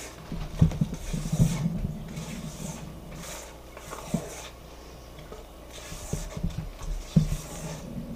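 A rubber spatula folding whipped topping into cream cheese filling in a stainless steel mixing bowl: repeated scraping strokes around the bowl, with clusters of soft knocks and thuds in the first second or two and again near the end.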